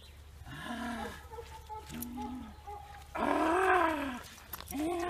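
Dog giving a series of drawn-out, whining yowls that rise and fall in pitch while heeling. The loudest, about a second long, comes about three seconds in, and another starts near the end.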